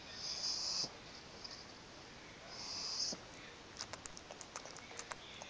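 Pug snoring: two hissing breaths about two and a half seconds apart, then a quick run of small clicks near the end.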